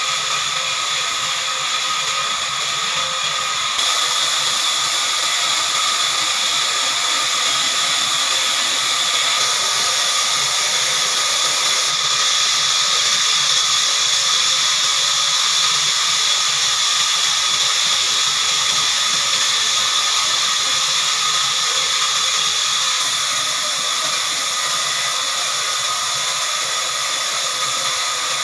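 Heavy-duty horizontal band sawmill running through a log: a steady, high-pitched whine and hiss of the band blade cutting. It gets louder about four seconds in and eases a little near the end.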